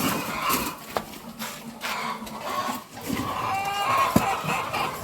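Chickens clucking, with a few sharp knocks.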